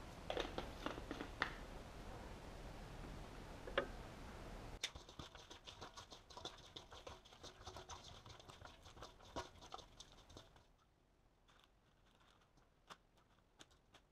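Seasoning shaken from a shaker onto raw fish: faint pattering and light ticks, a few sharper clicks near the start, a dense run of ticks for about six seconds in the middle, thinning out near the end.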